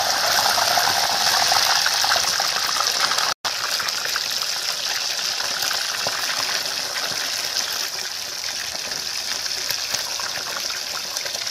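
Raw chicken pieces deep-frying in hot oil in a metal kadai, more pieces dropped in as it goes: a steady, loud sizzle with fine crackling, cut off for an instant about three seconds in.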